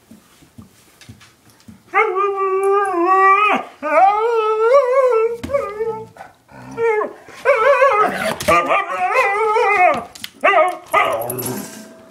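Siberian husky vocalising during rough play with another dog: a string of long, wavering, howl-like whines and yowls that starts about two seconds in and is broken by short gaps.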